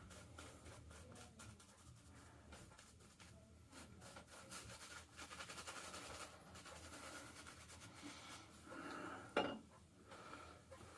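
Faint, quick scrubbing of a shaving brush's bristles working lather into a beard, with one brief louder noise near the end.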